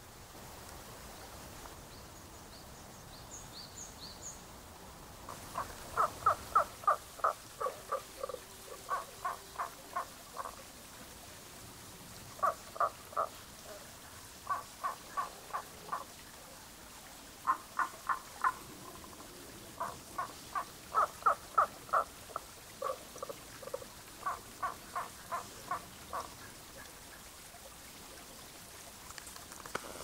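Tago's brown frog (Rana tagoi) calling: starting about five seconds in, several bouts of short, evenly spaced croaking notes, about four a second, separated by short pauses.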